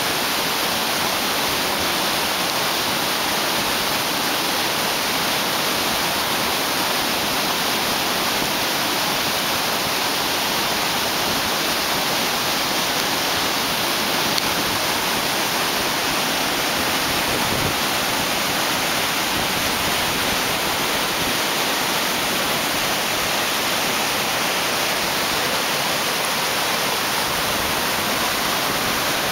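Mountain river rushing through whitewater rapids over boulders: a loud, steady noise of churning water.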